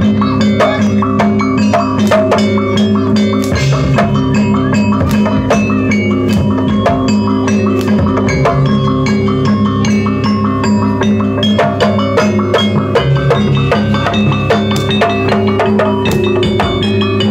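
Live Javanese jaranan gamelan music: drums and struck bronze gongs and metallophones playing a dense, steady rhythm, with sustained ringing tones beneath the strikes.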